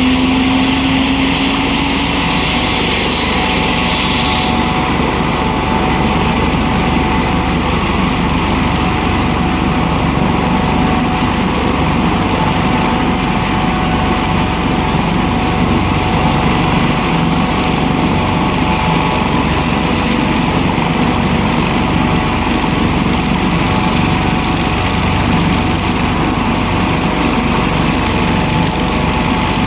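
Johanniter air-ambulance aircraft's turbine engine running steadily and loudly, with a thin high whine setting in about five seconds in and holding.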